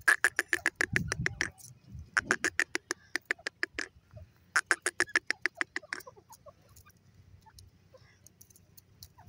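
Indian ringneck parakeet calling in three bursts of rapid, harsh repeated notes, about nine a second and each burst lasting about a second and a half. After the third burst only a few faint chirps remain.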